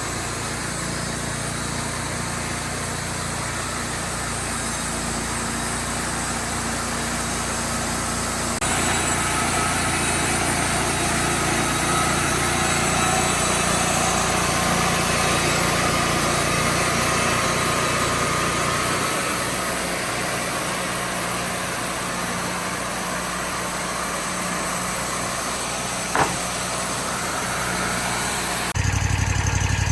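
Engine of a Wood-Mizer portable band sawmill running steadily, its note shifting a few times, with one sharp click near the end.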